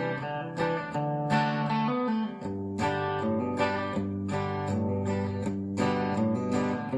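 Background music: a strummed acoustic guitar playing chords at a steady rhythm, about two strums a second.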